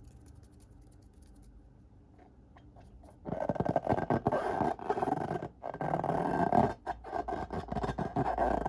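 Slime being squeezed and worked inside rubber balloons: a dense, crackly squelching and rubbing that starts suddenly about three seconds in and runs on with brief breaks, after a faint low hum.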